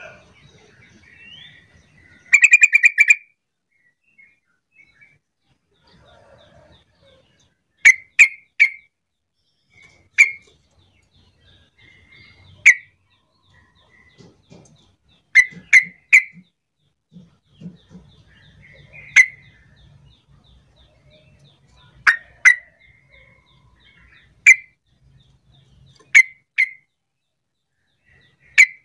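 Yellow-vented bulbul giving a fast rattling trill about two seconds in, then short, sharp call notes, singly or in quick pairs and triplets, every couple of seconds.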